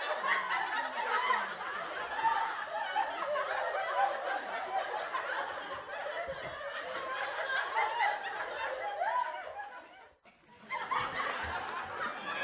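Audience laughter from many people at once, dying away about ten seconds in.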